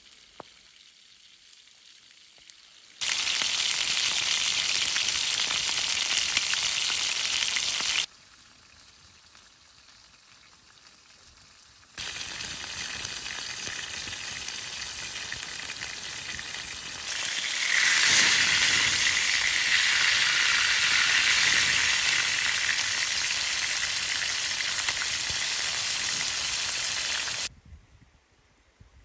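Steady sizzling hiss heard in several stretches that switch on and off abruptly, growing louder and brighter in the middle of the longest stretch.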